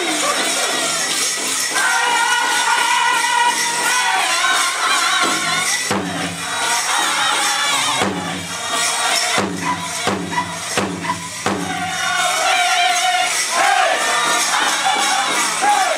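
Powwow drum group singing a grand entry song over a steady drumbeat, with dancers' bells jingling. The singing is high-pitched at first. About six seconds in it drops to a lower passage with strong, even beats about two a second, then the high singing returns near the end.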